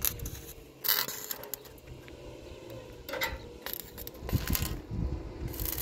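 Sharp metallic clinks and knocks of metal objects being handled, three main ones spaced a second or two apart, with a low rumble between about four and five seconds in.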